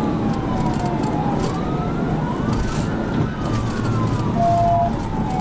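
Police cruiser siren in a slow wail, its pitch rising and falling every couple of seconds, over steady road and engine noise at high speed. A short steady beep sounds near the end.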